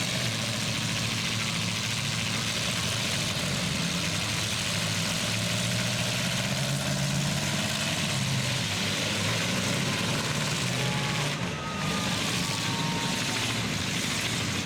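Demolition derby trucks' engines running steadily in the arena, a continuous wash of engine noise with no clear crash.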